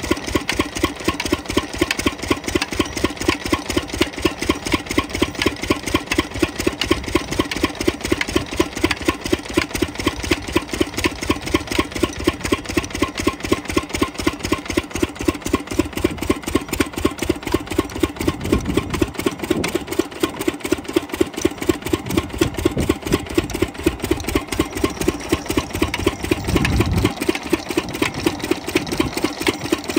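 Single-cylinder stationary diesel engine running steadily under load, an even beat of firing strokes about four to five a second, as it belt-drives an irrigation water pump.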